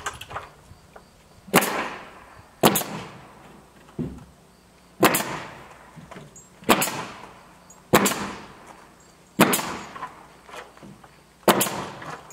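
Pneumatic nail gun firing nails up into wooden soffit boards: about eight sharp single shots, one to two seconds apart, each with a short hiss.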